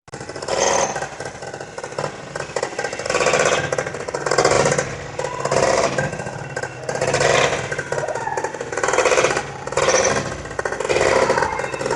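Engine of a propeller-driven ski sled running, its loudness rising and falling in swells every second or two as it revs.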